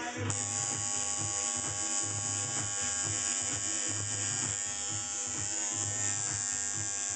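Coil tattoo machine buzzing steadily as the needle works into the skin.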